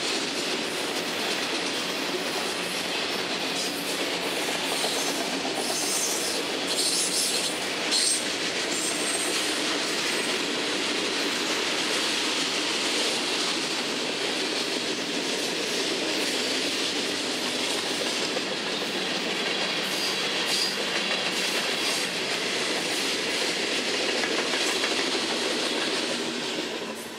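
Freight cars of a Florida East Coast Railway train rolling past, steel wheels running over the rails, with a few brief high squeals about six to eight seconds in. The noise falls away near the end as the last car goes by.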